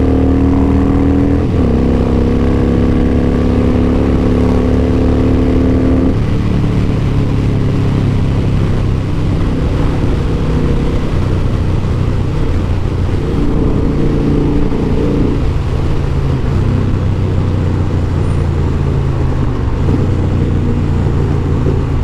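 Harley-Davidson Softail Deuce's V-twin engine running under way, heard from the rider's seat. The engine note steps down in pitch a little over a second in, as on a gear change, and around six seconds in the steady note turns rougher and uneven.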